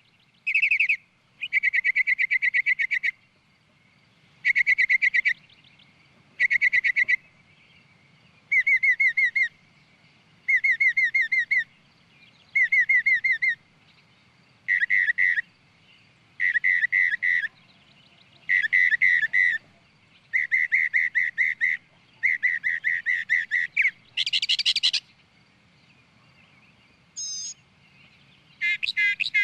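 A bird calling in repeated rapid trills, each about a second long and sounded every couple of seconds. One louder, higher burst comes near the end, followed by a short single chirp.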